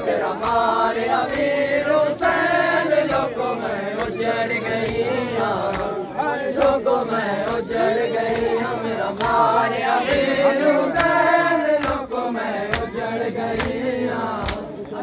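Crowd of Shia mourners chanting a noha in unison while beating their chests (matam), the open-hand slaps falling in a steady beat under the voices.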